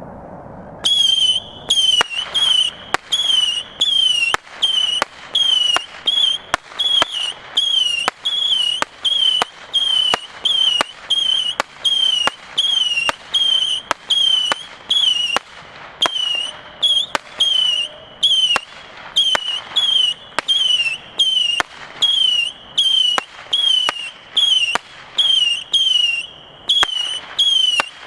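Saturn Missiles 100-shot, 8 mm firework battery firing in rapid succession, starting about a second in: a steady run of short, high whistles, about two a second, each dipping in pitch at its end, with a sharp pop between shots.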